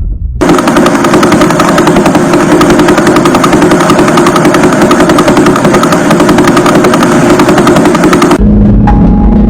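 Pulsar signal converted to audio: a rapid, perfectly even train of clicks, so fast it runs together into a machine-gun-like rattle. It starts abruptly just after the start and cuts off about a second before the end, where a low steady hum takes over.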